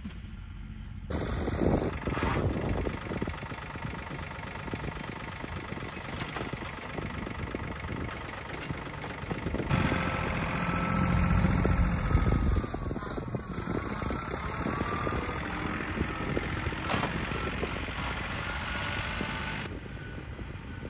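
TYM compact tractor's diesel engine running as the tractor drives, louder as it comes close about ten seconds in. The sound changes suddenly a few times where shots are cut together.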